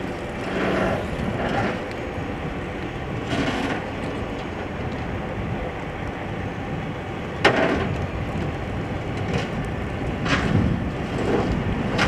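Steady outdoor rumble of vehicle traffic, with scattered faint bursts of noise and one sharp knock about seven and a half seconds in.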